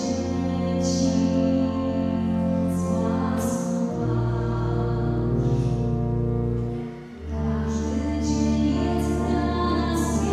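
A woman's solo voice singing a slow song, accompanied by sustained pipe organ chords. The organ chords change about four seconds in and again about seven seconds in, with a brief dip in loudness just before the second change.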